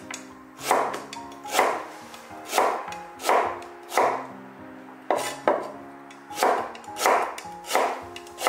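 Chinese cleaver slicing fresh ginger into thick slices, each cut ending in a sharp knock on a bamboo cutting board, about one cut a second, with soft background music under it.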